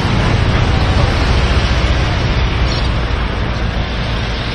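Outboard motor of a small speedboat running as the boat pulls away, a steady rushing noise with a low rumble and churning water.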